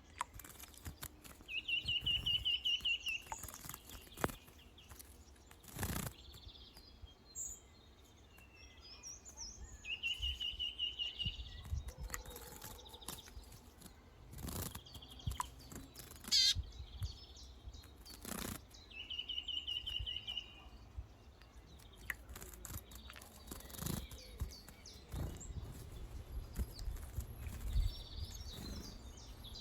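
Wild songbird singing a short, rapid, buzzy trill three times, about nine seconds apart. Other bird chirps and scattered short sharp sounds fall in between.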